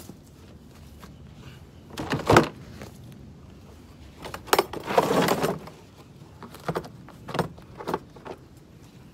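Hard plastic tool carrying case being handled and opened: a loud knock about two seconds in, a longer rattling clatter around five seconds as the lid comes open, then a few lighter clicks.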